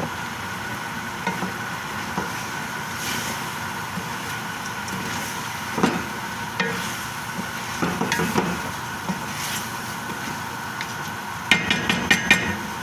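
Chicken afritada sizzling in the pan, with a spoon stirring and knocking against the pan now and then, a steady hum underneath, and a quick run of clinks near the end.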